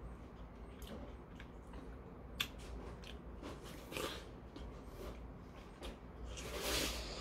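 Close-up mouth sounds of a person biting into and chewing juicy watermelon chunks, wet and squelchy, loudest near the end, with one sharp click about two and a half seconds in.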